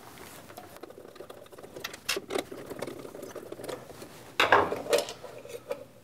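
Screwdriver turning screws out of a drill press's plastic front switch housing: a fine, dense scratchy clicking as the screws back out. Then a couple of louder knocks from the loosened plastic parts about four and a half seconds in.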